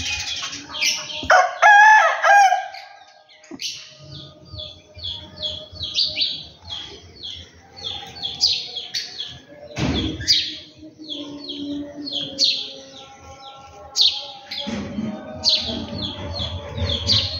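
A rooster crows once, loudly, about a second in, over continual quick chirping of small birds. A single sharp knock comes about ten seconds in.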